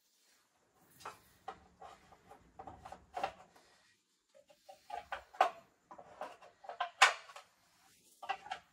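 Workout gear being handled and fastened at the feet: two runs of rustles and sharp clicks, the first beginning about a second in and the second from about four and a half seconds, with the loudest click near the seven-second mark.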